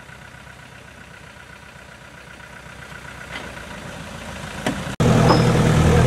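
Land Rover Series 4x4 engines running at low revs while wading through a muddy stream: a fairly quiet engine that slowly grows louder, then about five seconds in a sudden jump to a much louder, steady engine sound of a Land Rover close by.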